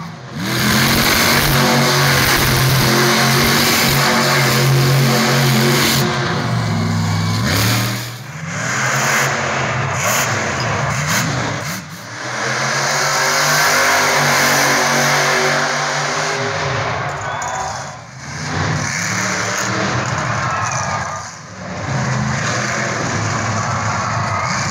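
Monster truck engines revving hard, the pitch rising and falling with the throttle, in several short stretches with brief drops in level between them.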